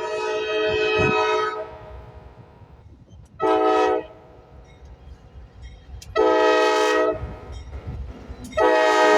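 GE AC44C6M locomotive's multi-note air horn sounding a series of blasts. A long blast ends about a second and a half in, two short blasts come around three and a half and six seconds in, and another long blast starts near the end. Low rumble of the locomotive fills the gaps.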